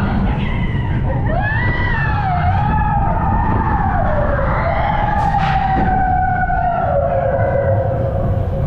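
Mine train roller coaster running along its track with a steady low rumble of wheels, and a long wavering wheel squeal that starts about a second in and slowly drops in pitch. A single sharp clack about five seconds in.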